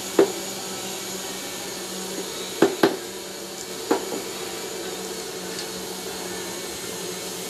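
A steady motor drone, like a fan or machine running, with a few short sharp knocks: one just after the start, two close together about two and a half seconds in, and one more about a second later.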